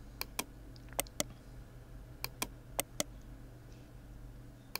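Computer mouse buttons clicking, each click a quick press-and-release pair: four pairs spaced about a second apart and one more click near the end, over a low steady hum. The clicks are the selection of the hole edges one by one in CAD software.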